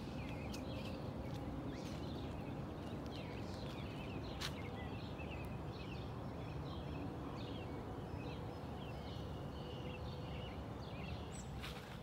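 Outdoor ambience: a steady low background rumble with many small birds chirping throughout, and one sharp click about four and a half seconds in.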